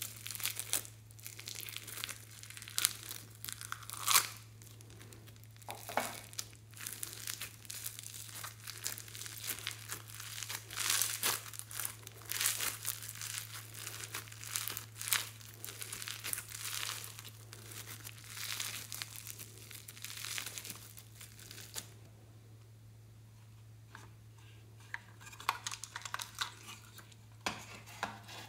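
Small foam beads tipped from a plastic tub onto slime and pressed in by hand, making a dense run of small crinkly crackles and clicks. The crackling drops away about three quarters of the way through, then a few scattered clicks return near the end.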